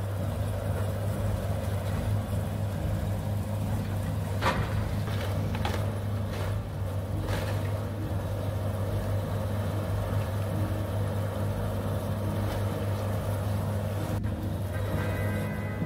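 Hydraulic excavator's diesel engine running steadily while its bucket tears into a wood-framed house, with a few cracks and crashes of splintering timber and falling debris between about four and eight seconds in.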